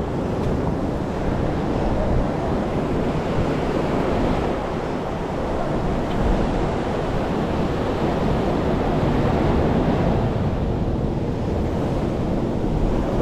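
Sea surf washing on the shore, with wind buffeting the microphone: a steady rushing noise.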